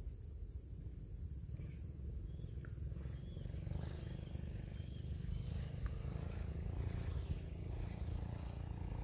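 Outdoor ambience: a constant low rumble with faint short bird chirps and quick rising whistles that start a few seconds in, over a thin steady high hiss.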